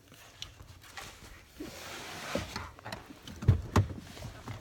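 Phone microphone handling noise: rustling and scraping as the phone rubs against hair and clothing, with small clicks and two low thumps close together about three and a half seconds in.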